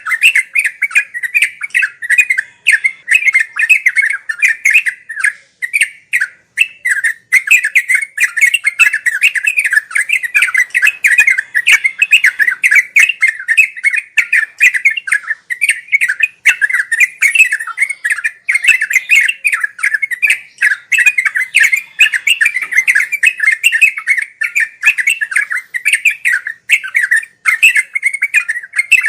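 Yellow-vented bulbul (trucuk) singing a continuous run of rapid, chattering chirps with no breaks, the kind of song used to teach caged birds.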